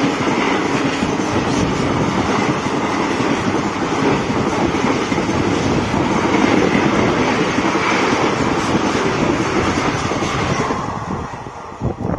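Loud, steady running noise of Indian passenger coaches rolling past close alongside on the adjacent track, heard from beside a train. The noise falls away about ten seconds in.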